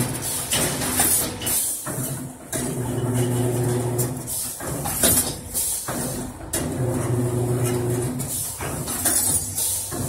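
CNC wire bending machine working through its automatic cycle: a steady motor hum for about a second and a half, then a run of sharp metallic clacks and short hisses, the pattern repeating about every four seconds.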